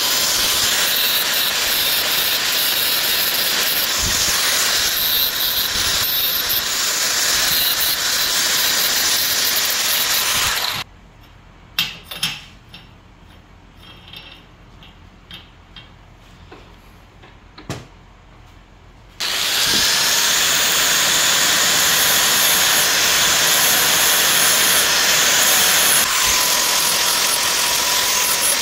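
Electric power tool running loudly with a hissing, grinding sound on a steel gear for about ten seconds, then shutting off. Several seconds of a few light metal clicks follow. Then an angle grinder with a sanding disc starts and grinds the gear, a steady hiss with a faint whine.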